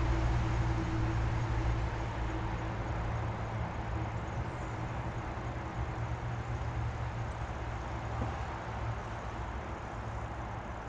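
Steady wind rumble and hiss on the GoPro action camera's microphone, heaviest in the low end and easing off slightly as it goes.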